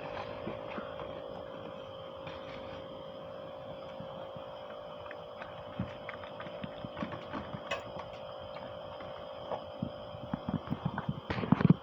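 A steady hum with a fixed tone, under scattered small clicks and taps from a puppy eating his food; the clicks get busier in the second half and are loudest near the end.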